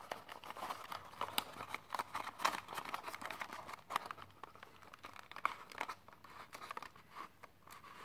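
Handling of a small cardboard toy-car box and its clear plastic blister tray: irregular crinkles and small clicks as the box end is opened and the tray slid out, busiest in the first half and thinning out toward the end.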